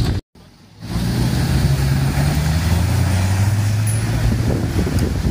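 Nissan Safari 4WD engine running with a low, steady drone as the vehicle drives through shallow river water, with water splashing around the tyres. The sound drops out for about half a second near the start.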